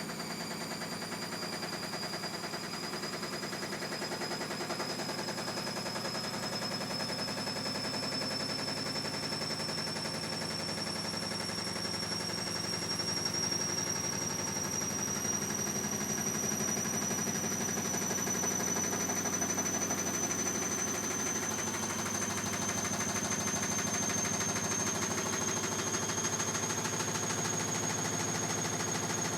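Bosch Classixx 6 Vario Perfect washing machine spinning up, its motor whine rising slowly and steadily in pitch over a fast, continuous rattling clatter. The drum is spinning with an unbalanced load.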